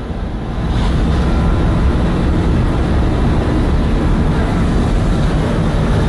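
Loud, steady low drone of a ship's machinery in the steering gear room, the main engine running in the background, with a faint steady whine over the rumble.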